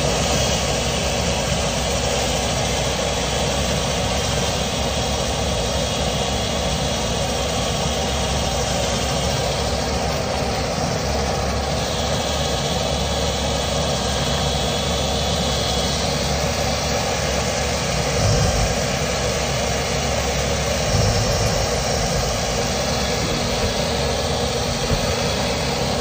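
Dryer-vent cleaning blower running at full speed, a steady rush of air through the duct.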